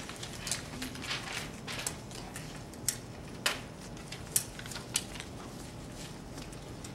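Cards or papers being moved and put aside on tables: soft rustling with a handful of short, sharp taps and clicks scattered through it.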